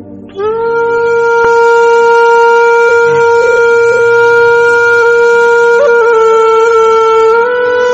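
Background film music: a reedy wind instrument holds one long note with a few small ornaments over a soft low drone, stepping up slightly in pitch near the end.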